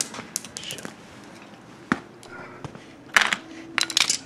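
Clicks and clatter of hard objects being handled, with two louder clattering bursts, one a little past three seconds in and one about four seconds in.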